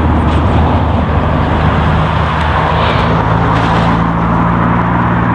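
Steady low hum of a lorry's engine as it crosses the road bridge over the line, its pitch shifting about two seconds in.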